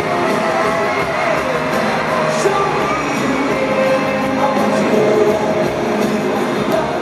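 Live pop band and singers performing through a stadium PA, heard from within the audience, with a large crowd singing and cheering along.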